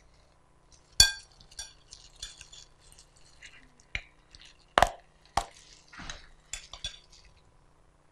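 A metal spoon clinking and scraping against a glass mixing bowl while dough is stirred, in a series of sharp irregular clinks. The loudest rings out about a second in, and two more strong ones come near the middle.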